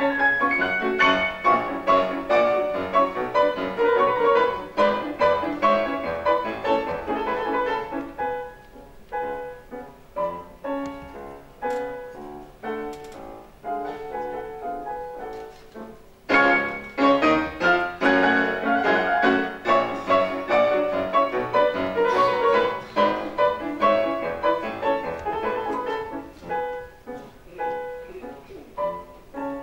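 Classical piano four-hands: two pianists playing together at one grand piano. A loud, dense passage gives way to a quieter stretch about eight seconds in, then the full sound comes back suddenly about halfway through and thins out again near the end.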